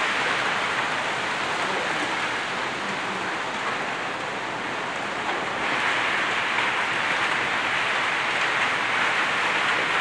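Heavy rain pouring steadily onto corrugated tin roofs and a yard, a dense hiss that grows a little louder about six seconds in.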